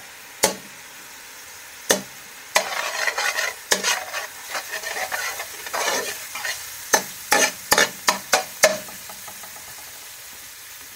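Metal spoon scraping and clinking against a stainless steel karahi as garlic and ginger are stirred in a little hot oil, over a faint steady sizzle. Scattered sharp taps, a stretch of scraping in the middle, then a quick run of taps near the end.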